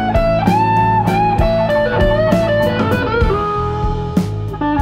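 Background music: a lead guitar melody with bending, gliding notes over a steady drum beat.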